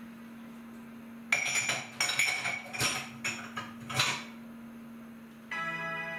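Crockery and cutlery clinking and clattering during washing-up at the sink: a run of knocks and ringing clinks starting just over a second in and lasting about three seconds. Near the end a steady sound with a sustained pitch, likely music, comes in.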